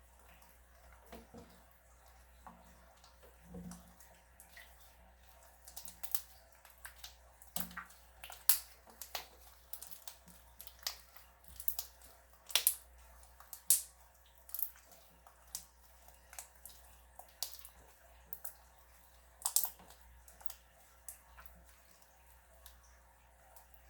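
Slime being squished and worked by hand, giving irregular wet clicks and pops, thickest in the middle of the stretch and thinning out near the end.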